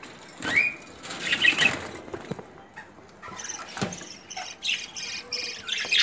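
Budgerigars chirping and chattering in their cage, with a flutter of wings and a couple of light knocks.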